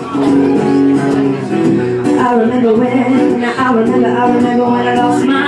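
Guitar playing steady chords, with a voice singing over it from about two seconds in.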